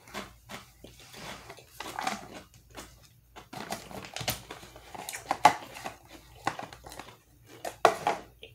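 Irregular clicks and knocks of a Pringles can being handled: its plastic lid pressed on and the can set aside, with a sharper knock about five and a half seconds in and another near the end.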